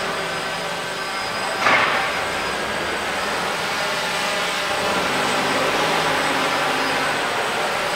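Small multirotor drone flying indoors, a steady whine of its propellers and motors, with a brief louder rush about two seconds in.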